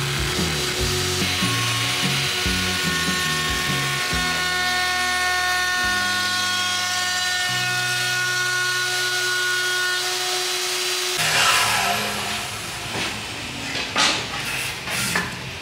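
Background music with a stepping bass line and long held tones, which stops about eleven seconds in; after it come a few sharp knocks and clicks.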